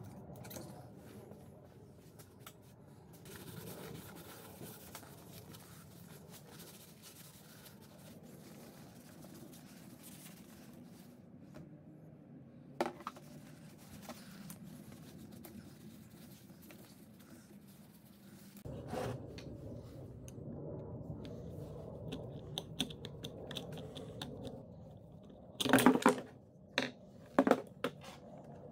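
Scrubbing and wiping a vintage hand-crank sewing machine, a soft steady scratching of brush bristles and cloth over the dusty cast-iron body. Near the end come a few sharp, loud knocks.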